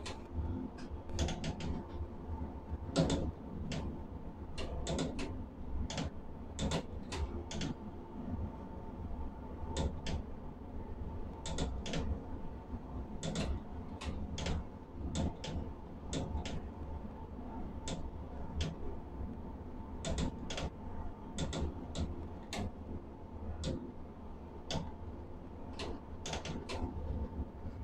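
Steel-plant machinery heard from inside an overhead crane cab: a steady low drone with a faint steady tone, broken by irregular sharp clicks and knocks about once or twice a second.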